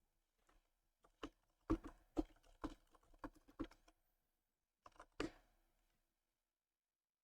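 Computer keyboard keystrokes: a run of about six key presses at roughly two a second, then a pause and two more about five seconds in.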